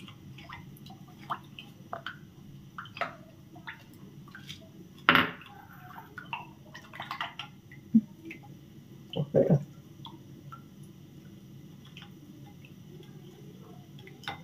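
Spoon stirring beaten egg and coconut milk in a ceramic bowl: scattered light clinks of the spoon against the bowl and small wet splashes, with a few louder knocks about five and nine seconds in.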